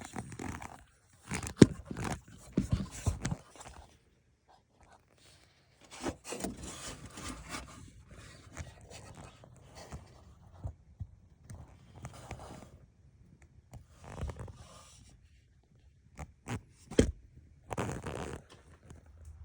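Irregular scraping, rustling and clicking of things being handled, in bursts with short quiet gaps, with one sharp loud click about a second and a half in.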